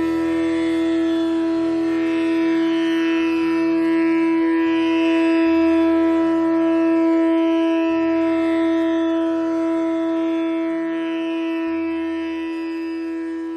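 Background instrumental music: one long note held steadily over slowly changing low tones, growing quieter near the end.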